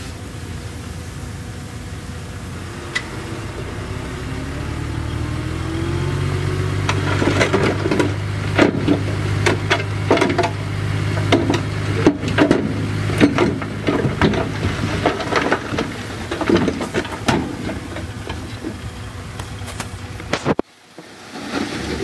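Caterpillar D6D bulldozer's six-cylinder diesel engine working, pulling harder under load from about five seconds in, with repeated clanks and rattles from the steel tracks and pushed rock. The sound cuts off suddenly near the end, then comes back.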